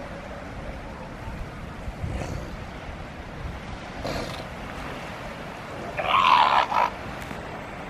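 Northern elephant seal giving one loud, harsh call about six seconds in, lasting under a second, over a steady background of surf and wind.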